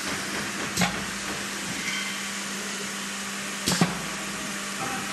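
Waffle sheet baking machine running with a steady hiss and low hum, broken by two sharp metal clanks from its hinged cast baking molds, one about a second in and a double clank about two-thirds of the way through.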